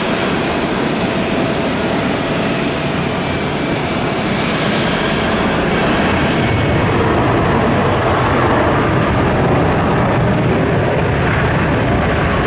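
Boeing 777-200ER jet engines during the landing rollout: a loud, steady rushing roar that grows louder and deeper about halfway through.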